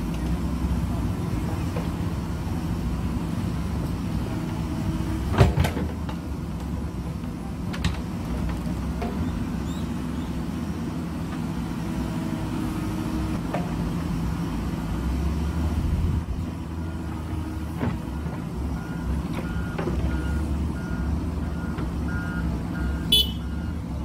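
JCB backhoe loader's diesel engine running under load while the backhoe arm digs and swings, with sharp knocks of the bucket and arm about five seconds in and again near the end. A faint repeating beep sounds in the last few seconds.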